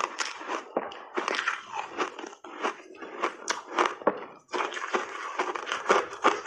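Refrozen block ice thickly coated in matcha powder being bitten and chewed, a rapid run of sharp crunches and cracks with a short pause about four and a half seconds in.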